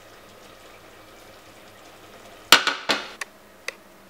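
Cookware knocking against the hob: two sharp clanks about half a second apart, a little past halfway, then two light clicks, over a faint steady hiss.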